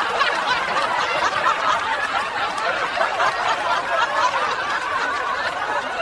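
People laughing continuously, several voices overlapping.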